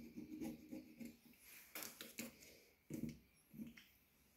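Faint scratching of a pen marking on cloth tape on a blade, then a few light clicks and knocks as a metal knife jig and dagger are handled and lifted off a plastic mat.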